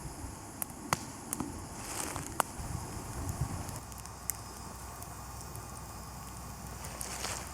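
Wood campfire crackling, with scattered sharp pops over a soft steady hiss of burning.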